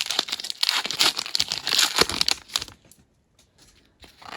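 Foil booster-pack wrapper crinkling and tearing as it is ripped open, a dense crackle for about the first three seconds, then a brief rustle near the end.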